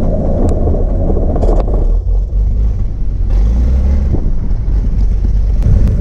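Cirrus SR22's six-cylinder piston engine and propeller running, heard as a steady low drone inside the cockpit, with a few faint clicks.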